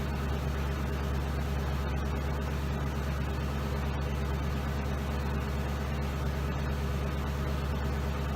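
Ford Crown Victoria's 4.6-litre V8 running steadily, a low even hum with no change in speed.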